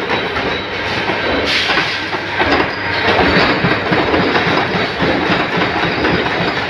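Mechanical punch presses running, their flywheel-driven rams stamping out flat washers (ring plates) in a dense, continuous clatter of rapid knocks.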